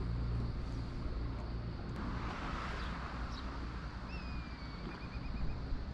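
A steady low engine hum. About four seconds in, a bird gives a whistle that slides slightly down and breaks into a quick run of about five notes.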